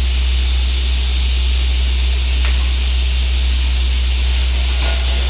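Woodworking machine running steadily after being switched on: a low motor hum under an even hiss, with a single faint click about two and a half seconds in.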